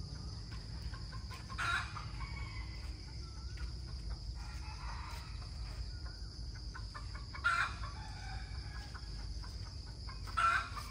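Chickens calling: three short, loud calls, about a second in, about seven and a half seconds in and near the end, over a steady high-pitched insect drone.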